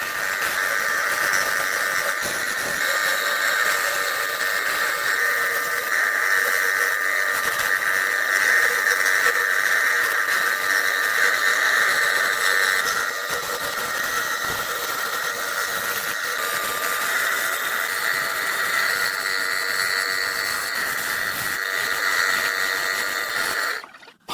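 Electric woodworking power tool running steadily: a continuous motor whine with hiss. It cuts out abruptly for a moment near the end.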